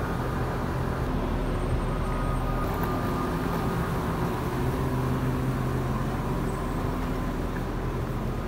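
Steady low hum of road traffic and idling bus engines.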